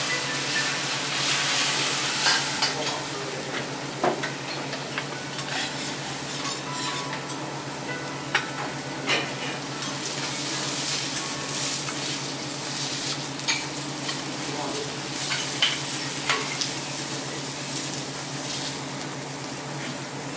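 Food sizzling on a teppanyaki iron griddle, with metal spatulas clicking and scraping against the plate at irregular moments over a steady low hum.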